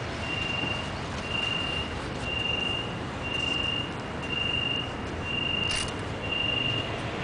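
A high electronic beep repeating about once a second, each beep about half a second long, over steady street traffic noise.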